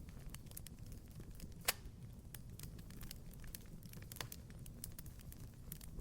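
Wood fire crackling in a fireplace: scattered small pops over a low rumble, with one sharper pop a little under two seconds in.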